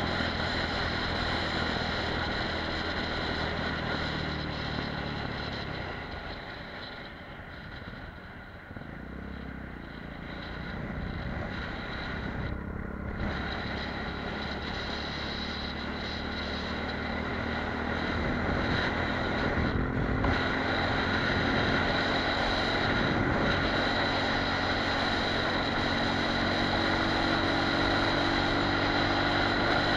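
Apollo RX250 supermoto's engine running while riding, mixed with wind rushing over the helmet-mounted microphone. The engine drops to its quietest about seven to nine seconds in, then picks up again, its pitch rising slowly through the second half.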